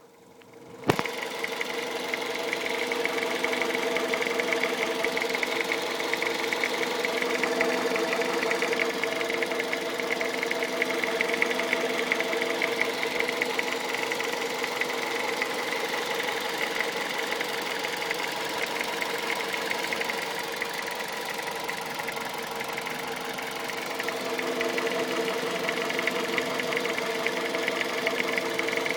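Toyota 1ZZ-FE 1.8 VVT-i four-cylinder engine of a 2001 Avensis running steadily with a rapid ticking noise of unknown cause, the fault the owner is asking to have identified. The sound starts suddenly just under a second in.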